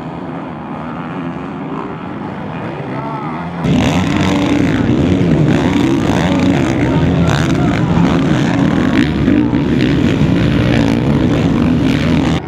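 Motocross race bikes' engines revving hard as riders race and jump on the dirt track, growing much louder about four seconds in as the bikes come close.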